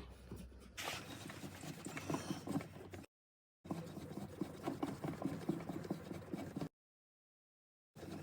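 Light scraping and clicking of hands working the plastic diesel fuel filter, turning it back into its mount, with the sound cutting off abruptly twice.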